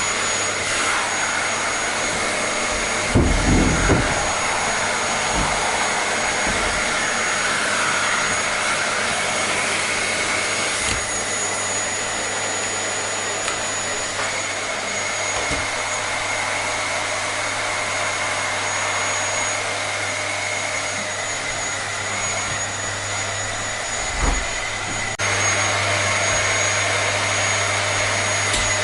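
Vacuum cleaner running steadily: a continuous rushing hiss with a faint motor whine. There is a low bump about 3 seconds in and another near 24 seconds, and the sound steps slightly louder about 25 seconds in.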